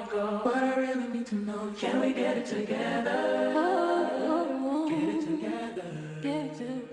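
Background music: a song with layered sung vocals, with no clear words.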